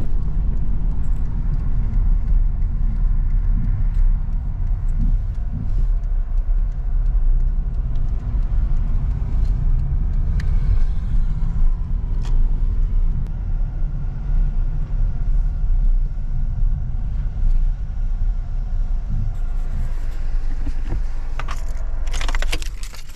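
Car driving, heard from inside the cabin: a steady low rumble of engine and road noise. Near the end the engine is switched off with the ignition key and the rumble stops.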